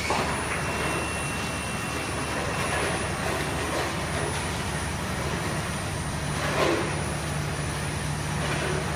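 Industrial tunnel baking oven running: a steady low hum under a rushing noise, with a brief louder swell about two-thirds of the way through.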